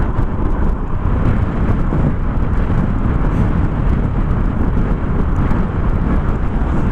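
Steady wind rush buffeting the microphone, with riding noise, from a Yamaha NMAX scooter cruising at a constant speed of about 56 km/h.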